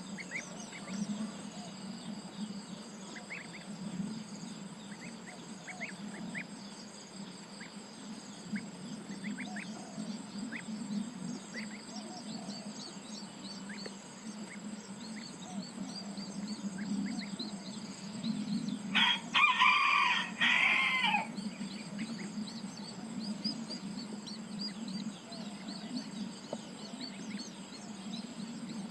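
A rooster crows once, loud and about two seconds long, about two-thirds of the way through. Behind it runs a steady insect drone, with scattered small bird chirps.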